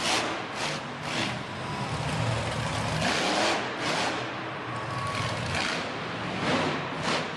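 Monster truck engine revving hard and changing pitch as the truck accelerates into and launches over a dirt jump, a loud noisy roar echoing in the arena.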